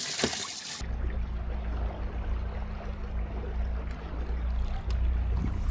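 Water gushing with a loud hiss, cut off abruptly under a second in, then a boat motor running with a steady low hum over the sound of moving water.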